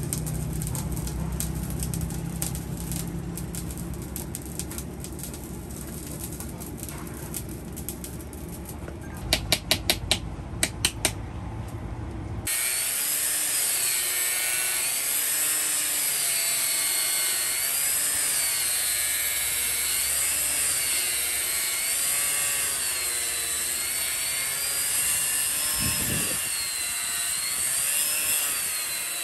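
A low steady hum with a quick run of sharp metallic clicks about ten seconds in. Then, about twelve seconds in, a handheld angle grinder cuts into steel clamped in a vise. Its high whine rises and falls slowly as the cut bears in and eases off, over and over.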